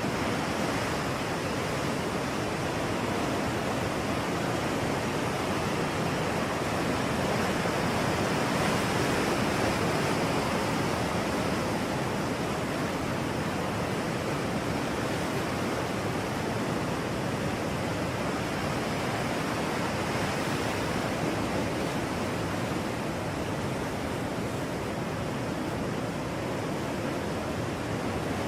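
Ocean surf: a steady wash of breaking waves with only a gentle swell in loudness, more a continuous roar of water than separate crashes.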